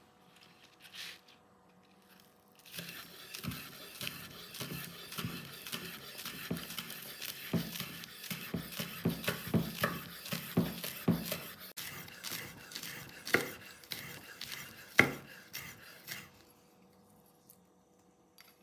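Cutlery and kitchenware clinking, knocking and scraping against dishes in an irregular run of small impacts, with one sharp knock about 15 seconds in.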